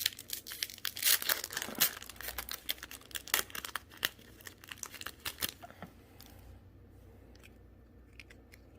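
Yu-Gi-Oh! booster pack wrapper being torn open and crinkled: a rapid, irregular run of crackles that dies away after about five and a half seconds, leaving a few light ticks.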